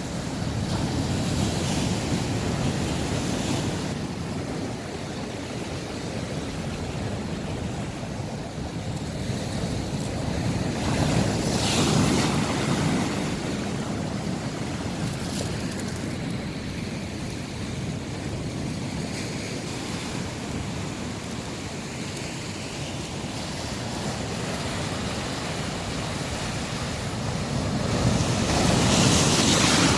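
Sea waves breaking on the shore in a steady wash, swelling louder with a bigger breaker about twelve seconds in and again near the end.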